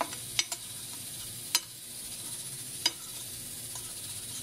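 Butter being spread over the bottom of a glass baking dish, with a few light clicks against the glass in the first three seconds over a steady background hiss.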